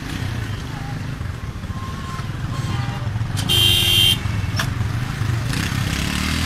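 Car and motorcycle engines running with a steady low rumble, and a vehicle horn blaring once for about half a second a little past the middle.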